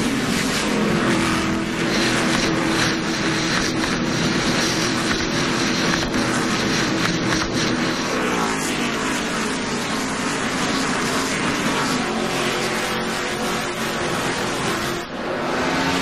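NASCAR stock cars' V8 engines running flat out as the cars pass close by, the pitch sliding down as a pack goes past about halfway through.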